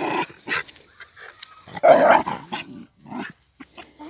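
A dog barking, a few short barks, the loudest about two seconds in.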